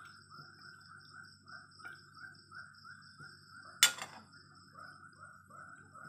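Animal chirping: a short call repeated about three times a second over a steady high trill. One sharp clack sounds a little under four seconds in.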